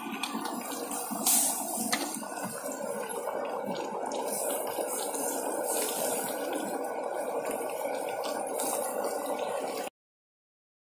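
Thick fish curry bubbling steadily in a large metal pot, with a couple of sharp clicks of the ladle against the pot in the first two seconds. The sound cuts off abruptly near the end.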